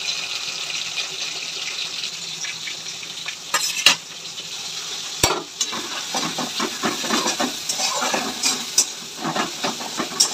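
Fish innards frying in hot oil in a wok with onion and green chilli: a steady sizzle, then a metal spatula stirring and scraping against the wok, with a few sharp knocks about four to five seconds in.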